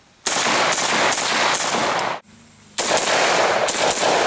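AK-pattern rifle firing strings of rapid shots, several a second, with a short break about two seconds in before another quick string begins.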